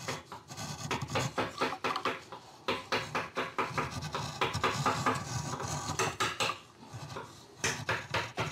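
Hand-pushed Japanese carving chisel (nomi) paring a wood carving in many quick, short scraping cuts with brief pauses, driven by hand and chin pressure with no mallet. This is the finishing stage, smoothing the surface and adding slight relief.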